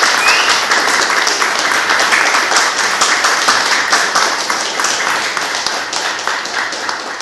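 Audience applauding: many hands clapping, slowly dying away toward the end.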